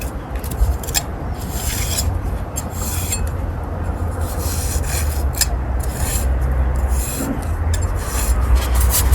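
Steel pointing trowel scraping through fresh mortar joints in brickwork, a run of irregular rasping strokes as the joints are cut and shaped, over a steady low rumble.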